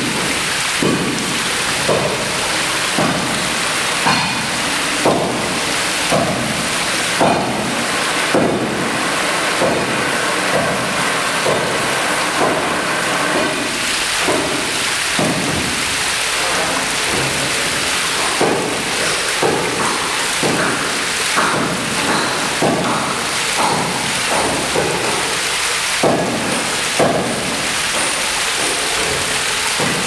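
Artificial waterfall: water running down sculpted rock steps and splashing into a shallow pool. It makes a steady rushing noise with irregular louder splashes about once a second.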